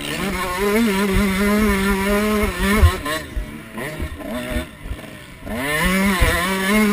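Pit bike engine running at a high steady pitch, then backing off about three seconds in so the note drops and wavers for a couple of seconds, before picking up again and holding high near the end. Low thumps come through underneath.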